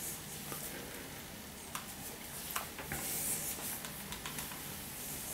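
Quiet room with faint rustling and a few light clicks, about two seconds in, as a person moves about and steps away.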